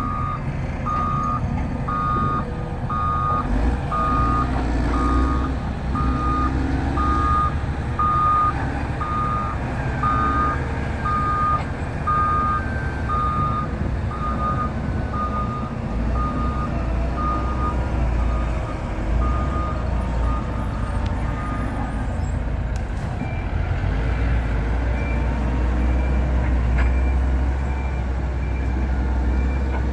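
Diesel engine of a heavy earthmoving machine running with its reversing alarm beeping steadily, the beeps growing fainter and dying away a little past halfway. Near the end a fainter, higher-pitched beeping starts over the continuing engine rumble.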